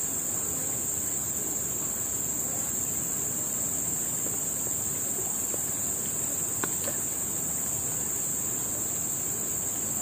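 Insects calling in one steady, unbroken high-pitched chorus.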